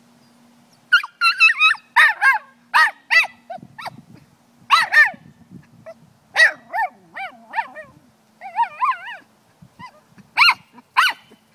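A small Brussels Griffon dog giving a run of short, high-pitched yips and whines in play, starting about a second in, with a wavering whine in the second half.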